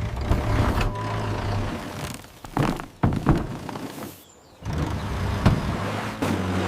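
Cartoon sound effects of a machine engine running with a steady low hum, broken by several thunks, and cutting out briefly a little past the middle before starting up again.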